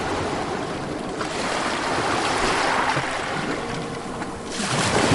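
Ocean waves washing onto the shore: a steady rush of surf that swells, eases off about four seconds in, and surges again near the end.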